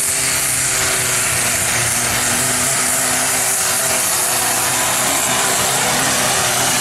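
Compact diesel pulling tractor's engine running flat out under heavy load as it drags a weight-transfer pulling sled. The note holds steady and loud throughout the pull.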